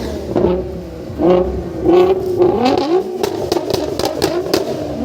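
Sports car engine revving up and down, with a run of sharp pops or cracks in the second half. The engine has a misfire.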